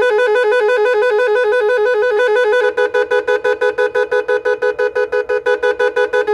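Electronic multi-tone snail horn ('Magic Horn') sounding a loud warble that flips rapidly between two close pitches. About two and a half seconds in it switches to another of its patterns, the same tones chopped into fast on-off pulses. The horn is covered to muffle it.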